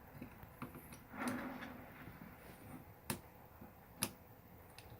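Small clicks and ticks of rifle parts being handled while the pistol grip of a Crosman DPMS SBR BB rifle is worked off, with two sharper clicks about three and four seconds in and a brief rustle about a second in.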